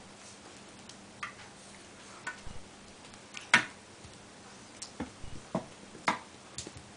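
Irregular sharp taps and clicks of a cat's paws and claws striking a small metal folding stepladder as it bats at a dangled string. The loudest knock comes about halfway through.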